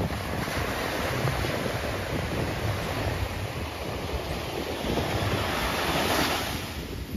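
Surf breaking and washing on a sandy beach, with wind buffeting the microphone in a low rumble. The hiss of the wash swells louder about six seconds in.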